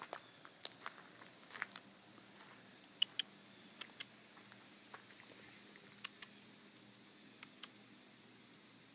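Slow footsteps on sandy, gravelly dirt: soft crunching steps, mostly in pairs, scattered every second or so. Under them runs a faint steady high-pitched insect drone.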